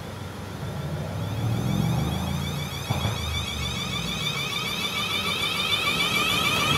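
Class 450 Desiro electric multiple unit accelerating away from a standstill: its traction motors give a whine of several rising tones over a low rumble, growing louder as the train picks up speed past the platform. A brief knock comes about three seconds in.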